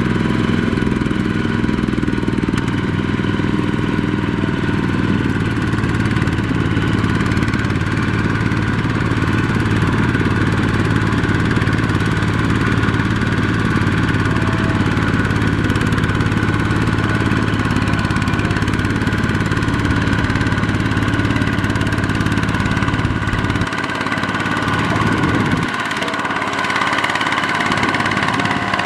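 Two-wheel walking tractor's single-cylinder diesel engine running steadily under load as it pulls a trailer of rice sacks through deep paddy mud. Its low note drops briefly about three-quarters of the way through, then picks up again.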